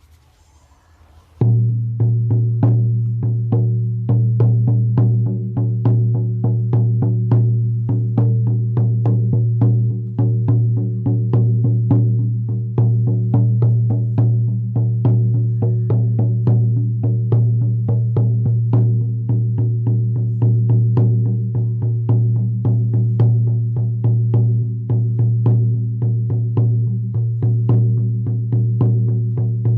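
A 16-inch deerskin frame drum on an ash frame, struck with a firm beater in a fast, even beat that starts about a second and a half in. The strokes blend into a steady, ringing low boom. The drum is freshly tuned to its highest pitch.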